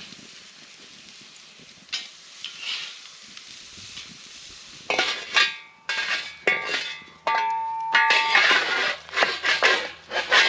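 Metal cookware and utensils clinking and scraping: from about halfway, a busy run of sharp clanks, some leaving a short metallic ring.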